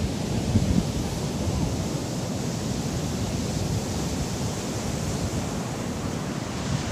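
Ocean surf breaking steadily on the shore, with wind buffeting the microphone in a low, gusty rumble.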